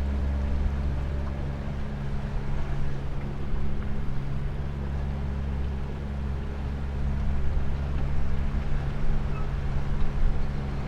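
Jet boat's outboard jet-drive motor running steadily under way, a constant low engine hum.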